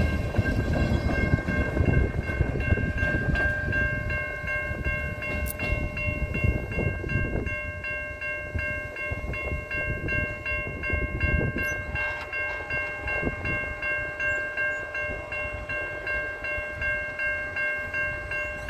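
Railway level-crossing warning bell ringing in a steady, even rhythm. Under it, the wheel rumble of the departing freight train's last cars fades away over the first several seconds.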